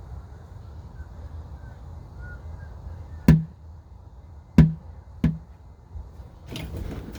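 Three sharp knocks of a hammer striking something, each with a short dull thud after it; the first two are the loudest and the third comes quickly after the second. A steady low rumble runs underneath, and a brief rustling noise follows near the end.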